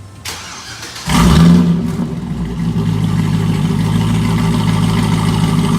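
Supercharged 6.2 L LSA V8 of a 2nd-gen Cadillac CTS-V starting: a brief crank, then it catches about a second in with a loud rev flare and settles into a steady idle.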